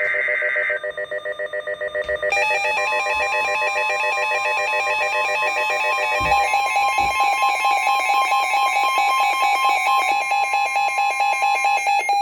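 Emergency Alert System severe thunderstorm alert on a NOAA weather radio: a short burst of digital SAME header tones at the start, rapid pulsing alarm beeps throughout, and from about three seconds in a steady NWS warning alarm tone that holds for about nine seconds.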